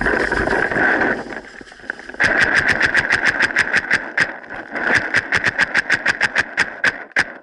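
Paintball marker firing in rapid strings of about eight shots a second, starting about two seconds in, with a short lull midway and a last shot or two near the end. A rushing noise fills the first second or so.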